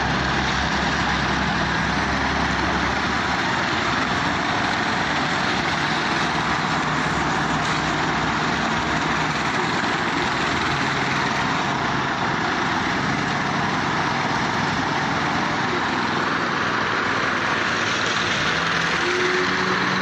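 Steady running of construction machinery at a concrete pour: the engine of a self-loading concrete mixer and a walk-behind power trowel working the fresh slab. A deeper engine hum fades about three seconds in.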